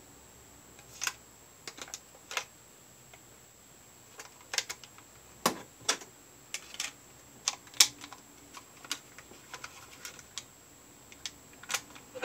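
AA batteries being pressed into the plastic battery compartment of a Panasonic portable cassette recorder and the recorder being handled: irregular sharp plastic clicks and knocks, a few louder clacks in the middle.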